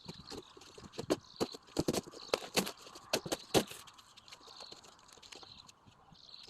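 A string of irregular knocks and clicks, loudest and most frequent in the first four seconds and sparser after, over a faint steady hiss.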